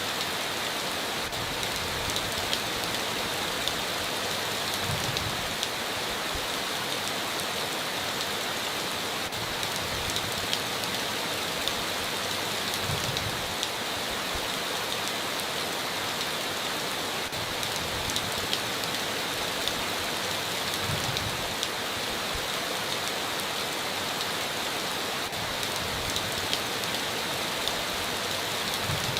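Steady heavy rain falling on a tin roof, an even hiss dotted with many sharp drop ticks.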